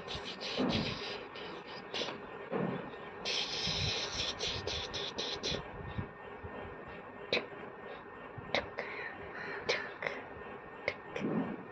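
Mouth clicks and smacks made while playing with a baby, irregular at first and then single sharp clicks roughly every second, with a few short soft voice sounds and a stretch of rustling in the middle.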